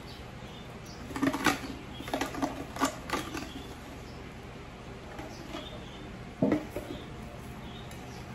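Scattered rustling and light clattering of kitchen items being handled during food preparation, with a sharper knock about six and a half seconds in.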